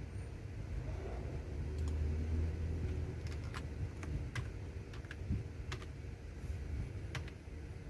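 Computer keyboard being typed on: single keystrokes clicking at a slow, uneven pace, about eight in all, over a low background rumble.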